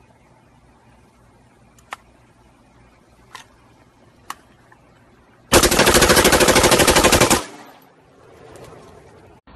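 A black AR-style rifle fires one continuous burst of rapid automatic fire lasting about two seconds. Some seconds before the burst there are a few single sharp clicks.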